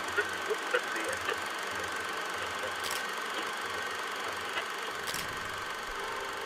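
Hiss and crackle of an old archival film soundtrack, with sharp clicks about every two seconds.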